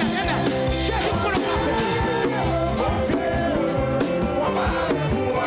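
Live church band music with an upbeat rhythm, drums and bass, with singing.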